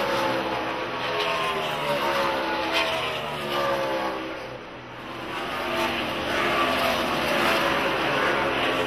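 NASCAR stock cars' V8 engines at full throttle passing by one after another, each engine note falling in pitch as it goes past. The sound dips about halfway through, then builds again as more cars approach.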